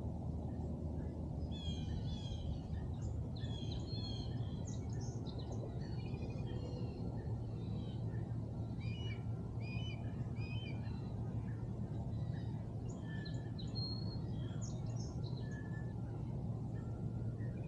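Several songbirds chirping and trilling all through, over a steady low rumble.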